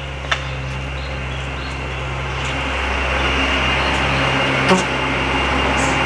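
A bus engine running as the bus drives past, a steady low hum that swells to its loudest about four to five seconds in. Two short sharp knocks, one just after the start and one about five seconds in.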